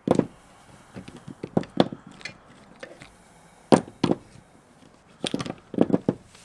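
Irregular sharp clicks and knocks of hard parts being handled, about a dozen strikes at uneven intervals: the battery pack's cells and plastic parts being taken apart.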